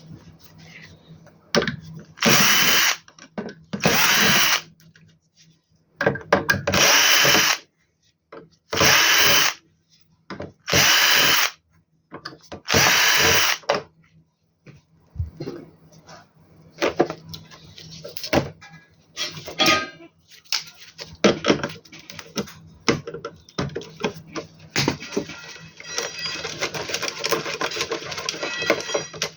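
Power screwdriver running in six short bursts of about a second each, backing out screws from the inverter's internal boards, followed by light clicks and clatter of screws and metal parts being handled.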